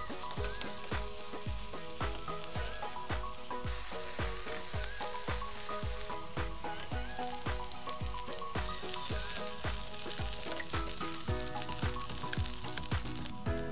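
Chicken pieces and garlic sizzling as they fry in a pan, stirred with a wooden spatula, under background music with a steady beat.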